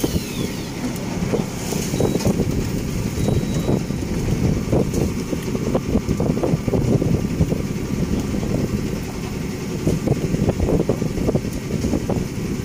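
Steady low rumble of the fishing boat's motor, with wind buffeting the microphone in gusts.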